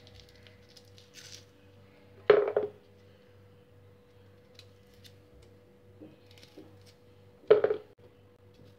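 Trimmed small onions dropped one at a time into a plastic bottle: two short knocks, about five seconds apart. Faint clicks from the knife trimming the onions' ends come between them.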